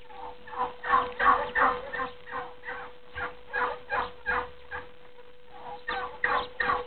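Turkey calling: a run of short, quick notes, about three a second. The notes pause briefly around the middle and start again near the end.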